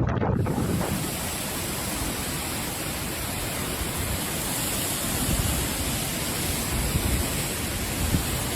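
Steady rushing noise of a violent storm, with wind rumbling over the microphone, holding at an even level throughout.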